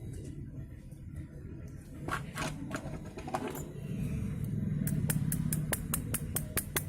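Aluminium earphones being handled: light clicks and taps of the metal earbud housings, scattered at first and then a quick, fairly even run of clicks near the end, over low handling rumble.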